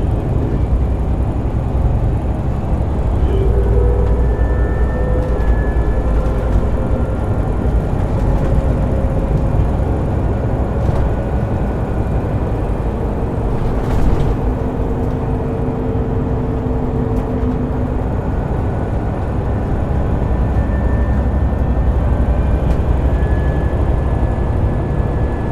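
City bus under way, a 1999 Scania L94UB, with a steady low rumble and the whine of its ZF Ecomat 5HP600 automatic transmission, which glides and steps in pitch. A single short knock sounds about halfway through.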